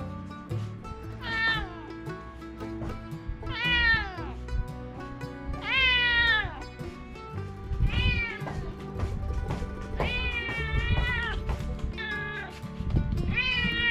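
A cat meowing over and over, about seven times at roughly two-second intervals, each meow falling in pitch, one near the middle drawn out longer than the rest. Soft background music runs underneath.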